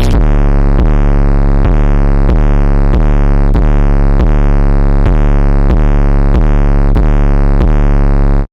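Electronic trap music: a loud, sustained distorted bass synth note, re-struck about every two-thirds of a second, that cuts off abruptly at the end.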